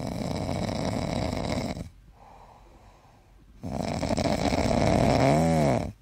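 Sleeping Shiba Inu snoring: two long snores with a quiet breath between them. The second snore ends in a tone that rises and falls in pitch.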